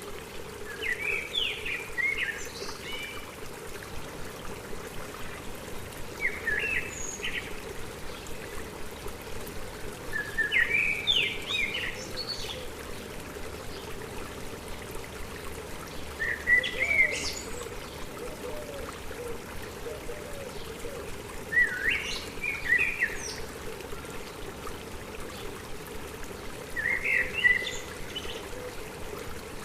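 A songbird singing short chirping phrases, six in all, one about every five seconds, over the steady trickle of a stream.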